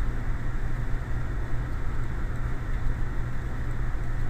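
Steady background noise of the recording: a low hum with a hiss, unchanging throughout.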